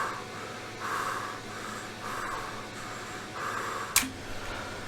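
A person breathing hard and audibly in excitement, with roughly one noisy breath a second and no words. A single sharp click comes about four seconds in.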